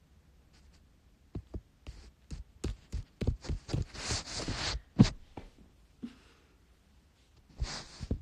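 Handling noise on a phone held close to the face: a run of knocks and taps with a breathy rush in the middle, the sharpest knock about five seconds in, and another short breathy rush near the end.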